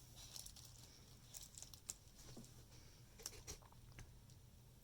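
Near silence with a few faint, scattered clicks and rustles of stamp sheets and packaging being handled.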